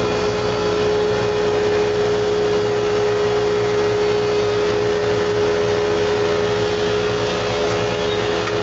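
Stationary thickness planer cutting a cupped rough-sawn board on its first pass, a loud steady hum with a strong held tone while the cutterhead is in the wood. The tone drops away near the end as the board clears the cutterhead. On this first pass the knives take wood only from the high middle of the cupped face.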